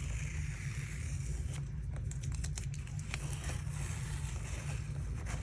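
Tape being peeled off watercolour paper: a soft rasping peel in the first second or two, then scattered small crackles as it lifts, tearing the paper surface slightly.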